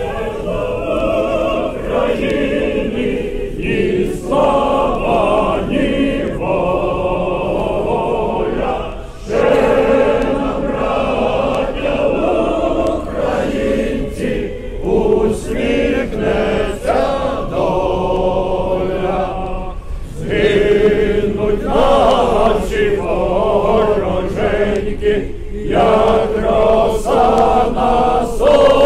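A large crowd singing a song together in unison, mostly men's voices, with short breaks between phrases.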